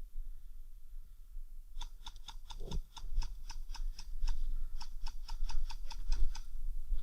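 Airsoft gun firing a rapid, even string of shots, about seven a second, for some four and a half seconds, over a low rumble on the microphone.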